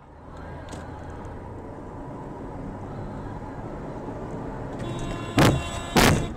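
Steady road and engine noise heard from inside a moving car, then two short, loud car horn blasts about half a second apart near the end.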